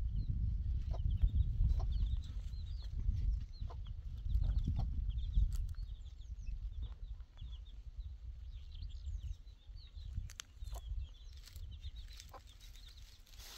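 Wind buffeting the microphone, loudest in the first half and easing off later. Over it, many short high bird chirps keep coming, with a few sharp clicks.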